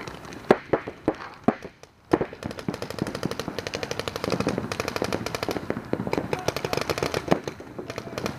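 Paintball markers firing: a few single shots in the first two seconds, then a fast, continuous string of shots from about two seconds in.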